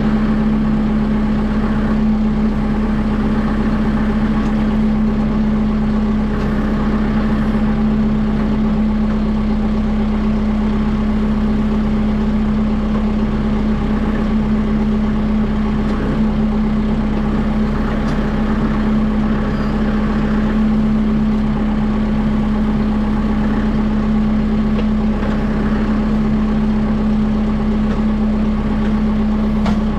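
Kubota M6060 tractor's diesel engine running loud and steady at a constant speed, with a steady hum that does not change.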